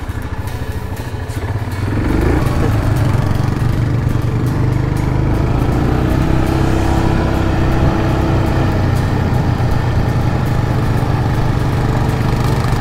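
Quad bike engine idling, then opening up about two seconds in as the bike pulls away, and running steadily as it rides along firm sand.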